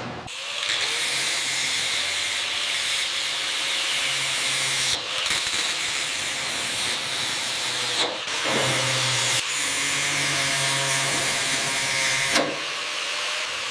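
A machine's steady hiss over a low motor hum, breaking off briefly several times.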